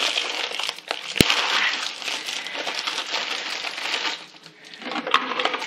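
Plastic wrapper of a package of gingersnap cookies crinkling and crackling as a stack of cookies is pulled out, with one sharp click about a second in and a brief lull near the end.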